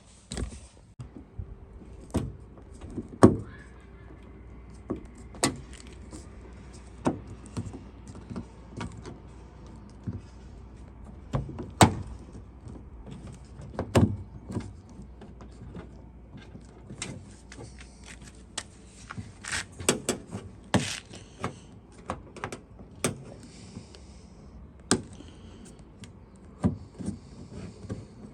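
Irregular clicks, knocks and rattles of the Fiat 500 door's latch mechanism and metal linkage rods being worked by hand inside the door, with the loudest knocks about 3 and 12 seconds in.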